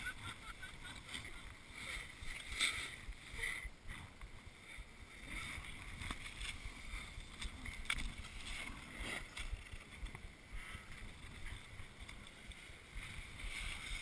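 Snowboard sliding and scraping over hard-packed groomed snow, a steady hiss with a few sharper scrapes, under a low rumble of wind on the microphone.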